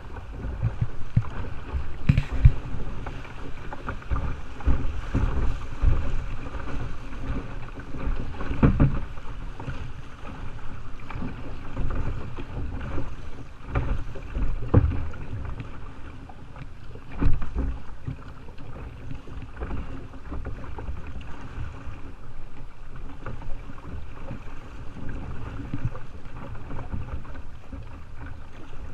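Water rushing and splashing against a kayak's hull as it runs through a choppy riffle, over a steady low rumble, with a few louder thumps about two, nine, fifteen and seventeen seconds in.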